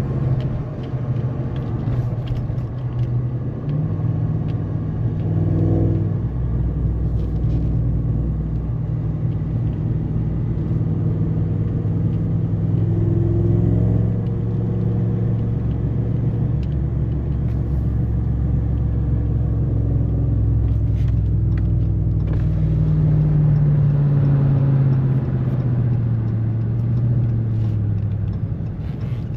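Ram pickup truck's engine and road noise heard from inside the cab while it drives towing a loaded trailer. The engine note climbs about four seconds in, holds steady, then drops toward the end.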